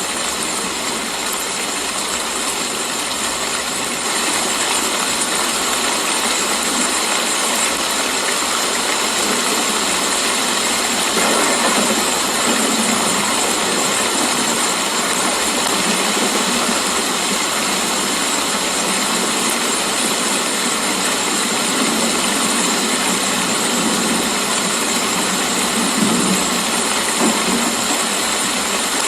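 Steady rain falling, an even unbroken hiss, with a couple of brief louder knocks near the end.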